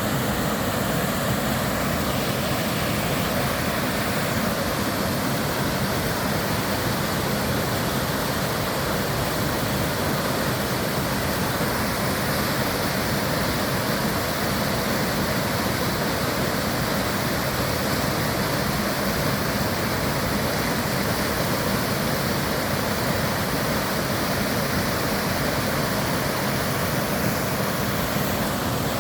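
Waterfall, a steady, unbroken rush of falling water at an even level throughout.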